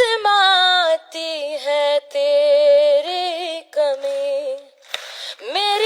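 A woman singing unaccompanied in a high voice: a run of long held notes with a slight waver, a short break near the end, then a brief note that slides up and back down.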